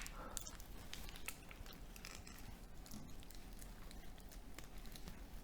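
Faint crinkling and scattered small clicks of insulating tape and copper winding wire being handled and cut apart on a stripped transformer, with a sharp click at the start.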